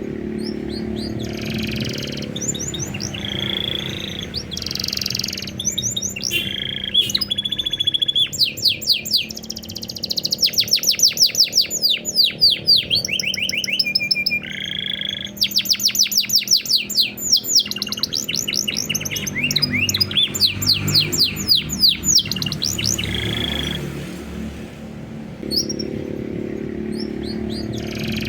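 Domestic canary singing a long, varied song of short whistled phrases. Through the middle it runs into rapid trills of quick falling notes, repeated many times a second, which are the loudest part.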